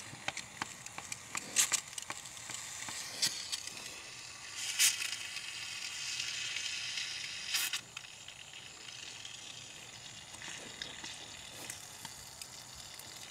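Air and diesel fuel sputtering and hissing out of the opened bleeder screw on a Duramax fuel filter housing as the hand primer is pumped, purging air from the fuel system. The hiss swells in the middle and falls away about two thirds through, with a few sharp clicks along the way.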